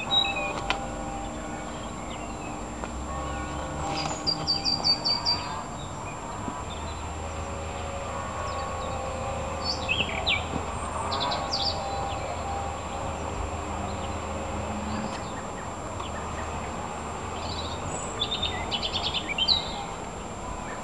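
Small birds chirping in short runs of rapid high notes, about four seconds in, again around ten seconds and near the end, over a steady low background hum.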